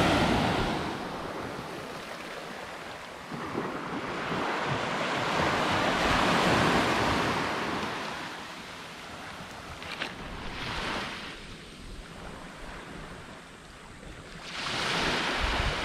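Small waves breaking and washing up a sandy beach, swelling and fading four times, about every four to five seconds.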